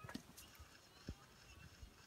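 Near silence, broken by a few faint, dull knocks about half a second apart. The loudest comes about a second in.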